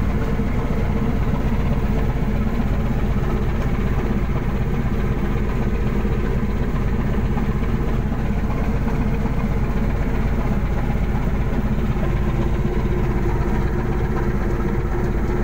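A fishing vessel's engine running steadily: a constant, unchanging low hum.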